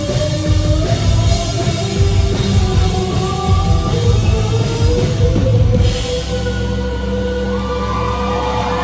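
Live rock band playing with distorted electric guitars, bass and drum kit. About six seconds in, the drumming stops and the guitars and bass hold one chord ringing out, the end of the song.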